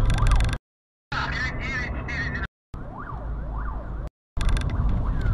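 Police siren wailing rapidly up and down over low engine and road rumble. It comes in short pieces that cut off abruptly into silence three times.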